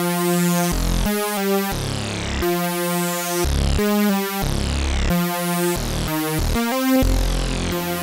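Sequential OB-6 synthesizer played dry, with the reverb switched off: a synth patch playing a chord phrase over bass notes, the notes changing about every half second to a second.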